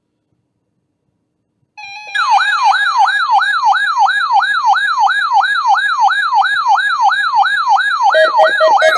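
Electronic emergency-alert attention tone of a weather radio test broadcast. It starts about two seconds in with a brief steady tone, then becomes a loud siren-like falling sweep repeating about three times a second. Near the end a lower, rapidly pulsing beep joins it.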